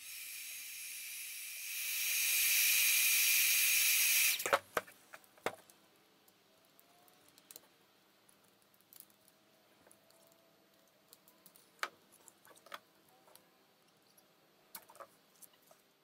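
Handheld heat gun blowing hot air onto a cured resin sculpture's base to soften excess resin: a steady hiss that grows louder about two seconds in and cuts off about four seconds in. After it come a few faint clicks and taps from handling the piece.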